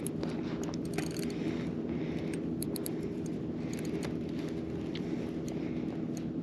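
Daiwa spinning reel cranked steadily, its gears giving an even whir with faint ticks, as a hooked fish is reeled in.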